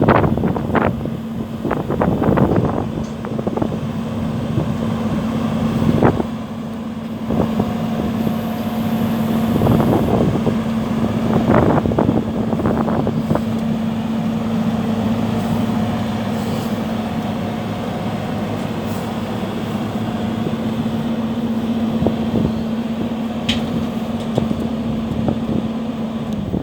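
JCB JS175W wheeled excavator's Isuzu diesel engine running steadily, with a few sharp knocks and clunks, most of them in the first dozen seconds.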